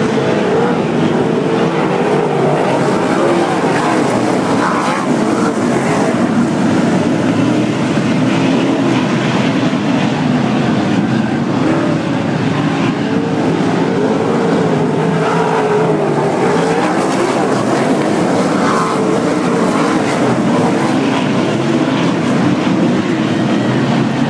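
A field of winged sprint cars' V8 engines running hard around a dirt oval: a loud, unbroken blare whose pitches rise and fall as the cars circle and pass.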